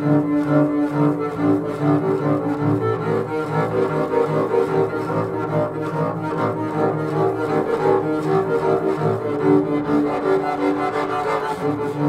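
Double bass played with the bow in a free improvisation: long, held droning notes that waver quickly in loudness.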